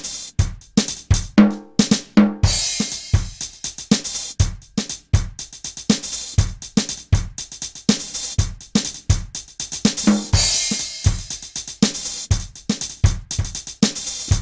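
Drum kit played in a steady beat of bass drum, snare and hi-hat. A quick tom fill about two seconds in leads into a cymbal crash, and a second crash comes about ten seconds in.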